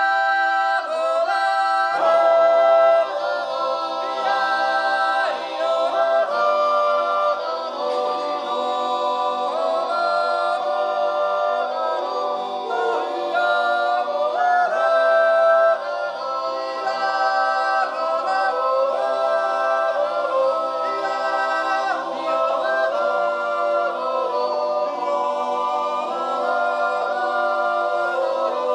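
Men's yodel choir singing a cappella in close harmony, with long held chords.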